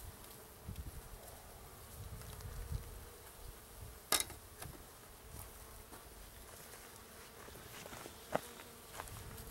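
Honey bees buzzing faintly in a steady hum, broken by two sharp clicks, one about four seconds in and one near the end.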